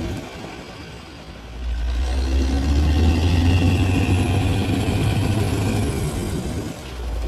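Large bulldozer's diesel engine working. It is quieter for about the first second and a half, then swells into a loud, steady low drone that holds, easing briefly near the end before picking up again.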